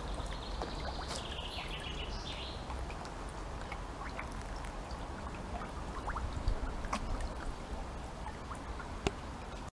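Steady trickling and splashing water of a garden fish pond where koi and goldfish crowd the surface, with a few short sharp splashes.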